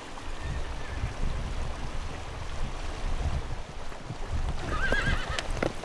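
A horse whinnies once near the end, a short quavering call, over the low splashing and churning of a foal struggling stuck in mud. A few sharp knocks follow the whinny.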